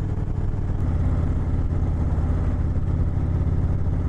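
2018 Indian Chieftain's V-twin engine running steadily under way, pulling a little harder from about a second in.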